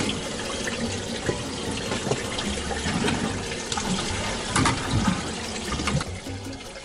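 Water sloshing and lapping against the hull of a small fishing boat, with a few light knocks.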